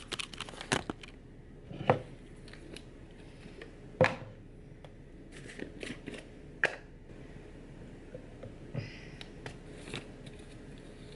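Plastic powder tub and shaker bottle being handled: about five separate clicks and knocks spread over ten seconds, with quiet room tone between.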